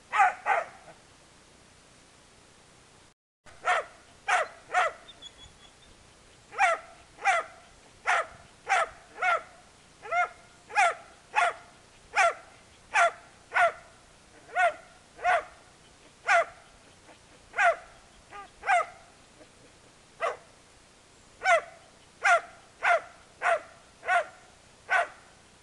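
Dalmatian barking repeatedly at a monitor lizard, sharp single barks a little more than one a second. They begin after a pause of about three seconds and pause briefly once more around two-thirds of the way through.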